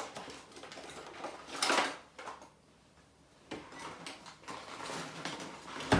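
Handling sounds of denim fabric and a clothes iron on an ironing board: fabric rustling and light knocks, with a short, loud rush of noise a little under two seconds in and a sharp knock at the end.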